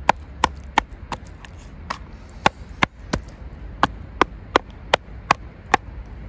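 Kitchen knife point repeatedly stabbing through raw chicken wings into a plastic cutting board: a run of sharp taps, about three a second, to prick the meat before marinating.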